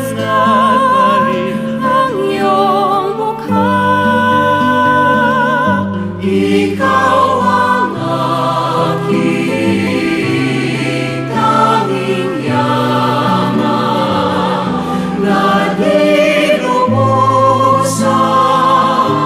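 Music: a choir singing, with sustained vibrato notes over instrumental backing.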